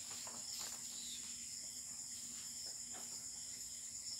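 Faint, steady high-pitched background hiss with a faint low hum, and a few soft paper rustles near the start and again about three seconds in as a sheet of paper is pulled away and another handled.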